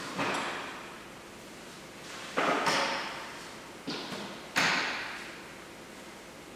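Sharp metal clanks from the steel swing arms and carriage of a Stenhøj two-post car lift being handled, about five knocks spread over the few seconds, each ringing out and echoing in the large hall.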